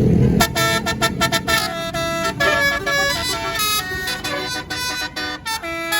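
Tour bus's telolet basuri musical horn playing a fast melody of short, changing tooting notes. A bus engine's low rumble drops away about half a second in.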